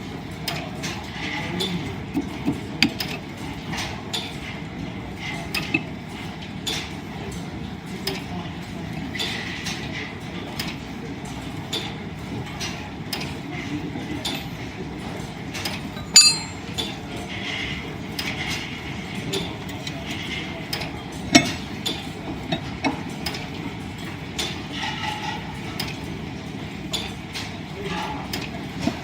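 Line-shaft driven wood lathe and its overhead shafting and belts running, with a steady mechanical clatter of irregular clicks and knocks. A single metallic clink rings out about 16 seconds in, and a sharp knock comes about 21 seconds in.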